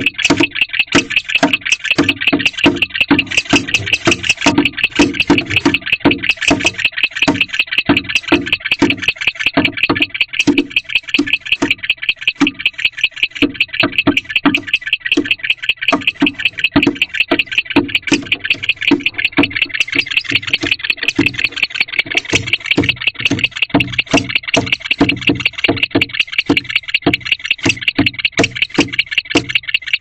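Young male barn owl's stomping and chirping display in a nest box: a fast, unbroken train of high chirps over rhythmic low thumps of its feet on the box floor.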